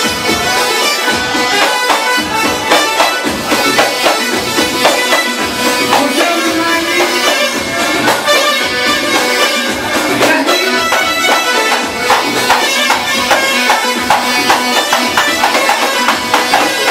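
Live band playing a loud instrumental piece of Iraqi folk dance music: a reedy, piercing wind-like melody over fast, steady drumming.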